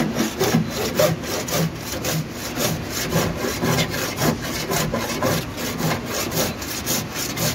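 A hand abrasive rasped back and forth over bare-metal dent-repair spots on a steel car door, in even strokes about three a second, working the panel level in bodywork before painting.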